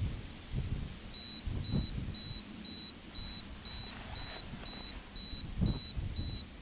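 Camera self-timer beeping, a short high beep at one pitch about twice a second, starting about a second in, counting down to the shot. Under it a few low thumps and rustles of handling.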